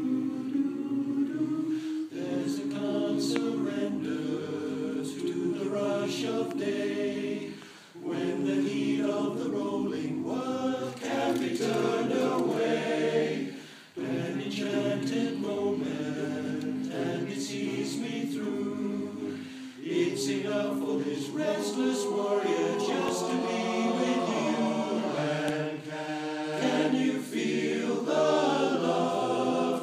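Men's chorus singing unaccompanied in close harmony. The sung phrases break off briefly about eight and fourteen seconds in.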